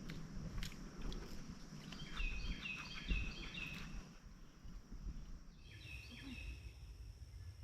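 A songbird singing a phrase of about five quick repeated whistled notes about two seconds in, then a shorter phrase near six seconds. Under it are a steady high-pitched drone, a low rumble and light ticks and knocks from walking on the trail.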